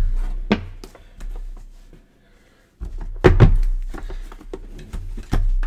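Several knocks and thuds of trading-card boxes being handled and set down on a tabletop: one about half a second in, a louder cluster around three seconds in, and another near the end.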